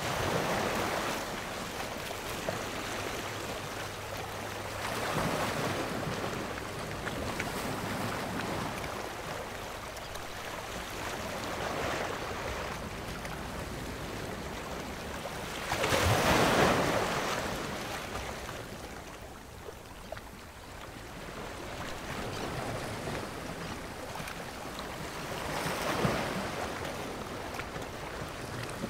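Sea waves washing against a rocky shore, swelling and falling back every few seconds, with the biggest surge a little past halfway.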